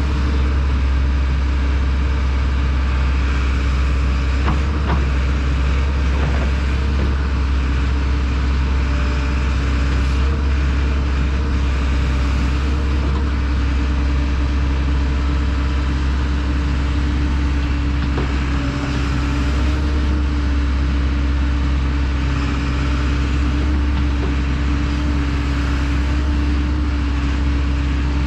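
Kobelco SK210 excavator's diesel engine running steadily at working speed: a constant loud drone with a low hum and a steady tone over it.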